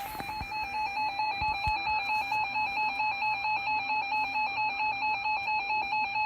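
Emergency Alert System attention tone: a loud, buzzy electronic alert tone warbling back and forth about four times a second, the signal that comes before the spoken warning.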